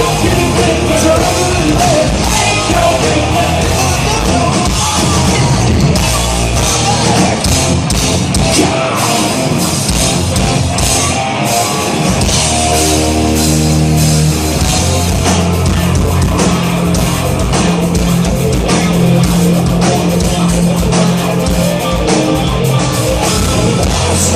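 Hard rock band playing loud, with distorted electric guitar, bass and drums.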